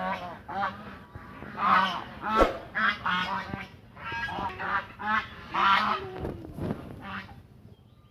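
Domestic geese honking: a run of repeated nasal calls, about two a second, some overlapping, dying down near the end.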